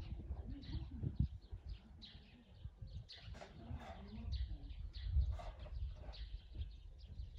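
Songbirds chirping and singing in short, overlapping high phrases, over a low rumble.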